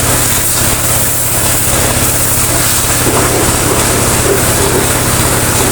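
High-pressure washer running steadily: a constant low motor-and-pump hum under the hiss of the water jet from the lance.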